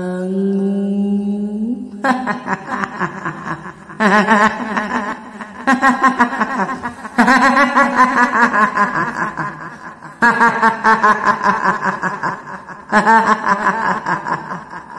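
Shrill, drawn-out cackling laughter of a woman's voice imitating the kuntilanak ghost, the 'hihihi' horror laugh, in several long runs of rapid pulses. It starts after a slow, drawn-out spoken word at the start.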